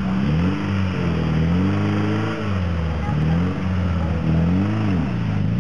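Small off-road 4x4's engine revving up and down several times, pitch climbing and falling in repeated swells as it is driven through mud.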